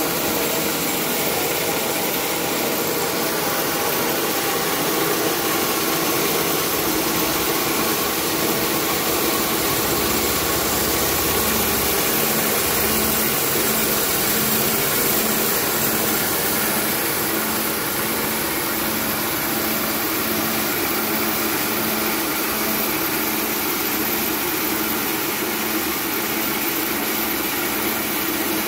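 Small rice milling machine running steadily: a continuous mechanical drone with a hiss of grain, and a faint regular pulsing that joins about a third of the way in.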